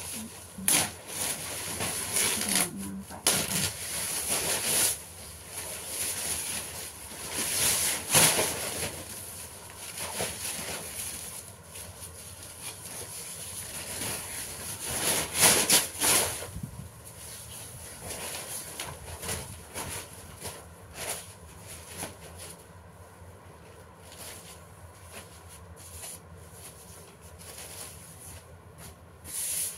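Sheets of paper being handled and folded: repeated rustling and crinkling, loudest about a third of the way in and again around the middle, softer toward the end.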